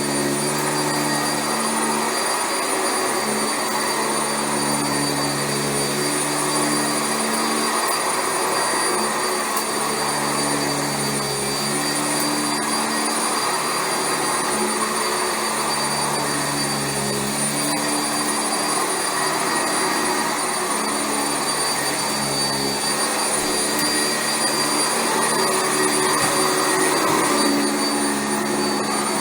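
Sanitaire SC679J commercial upright vacuum cleaner running on carpet with a steady high motor whine. Its lower hum swells and fades every few seconds as it is pushed back and forth.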